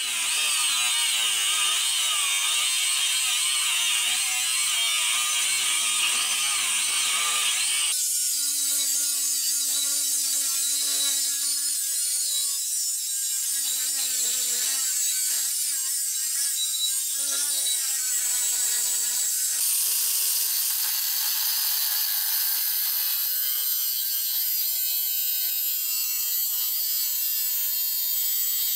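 Angle grinder with a cut-off disc cutting through steel plate: a loud, steady high whine whose pitch wavers as the disc bites. The sound changes twice, about a third and two thirds of the way through, as separate cuts begin.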